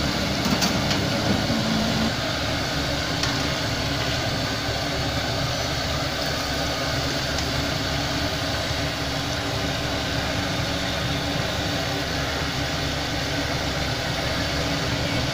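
Chicken pieces deep-frying in a large steel karahi of hot oil, a steady sizzling hiss over a steady low rumble. A couple of light clicks in the first few seconds.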